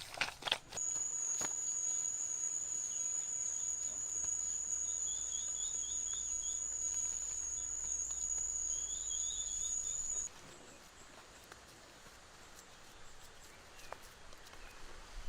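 A steady, high-pitched insect trill with two short runs of rapid chirps over it, outdoors. The trill starts just under a second in and cuts off suddenly about ten seconds in, leaving quieter outdoor background noise.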